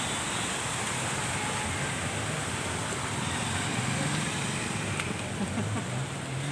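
Steady hiss of heavy rain, even and unbroken.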